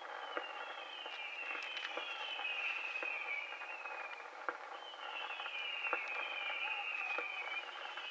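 Distant fireworks: a series of whistling shots, each a falling whistle about a second long, overlapping in two volleys with a short break at about the middle. Scattered pops and crackles run under them.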